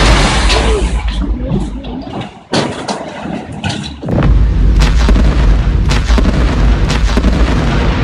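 Loud, deep rumbling with booms and sharp cracks over a noisy roar. It drops away abruptly about two and a half seconds in and returns just after four seconds.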